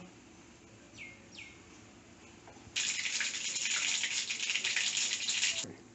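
Mustard seeds sizzling and crackling in hot gingelly (sesame) oil in a small tempering pan, spluttering as the seeds pop. The sizzle starts suddenly about three seconds in and cuts off shortly before the end. Two faint, short falling chirps come before it.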